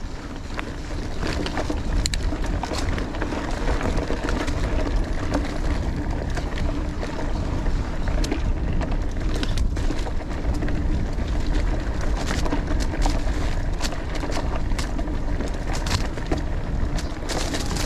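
2018 Giant Stance 2 full-suspension mountain bike being ridden on a dirt trail: a steady rumble of wind and tyres, with frequent clicks and rattles as the bike goes over the ground.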